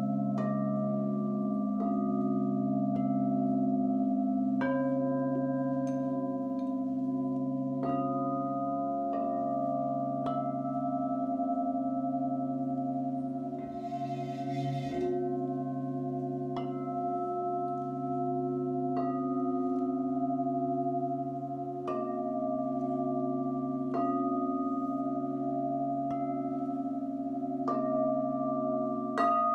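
Crystal singing bowls ringing in layered, sustained tones, struck with a padded mallet about once a second, each strike bringing in a fresh note over the ringing of the others. The lowest tone pulses with a slow wobble, and a brief hiss comes about halfway through.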